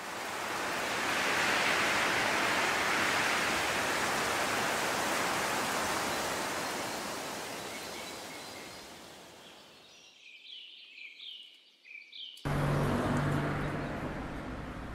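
A long swell of wind-like noise that fades away over about ten seconds, followed by a few short high chirps. About two and a half seconds from the end it cuts suddenly to street ambience with a steady low hum.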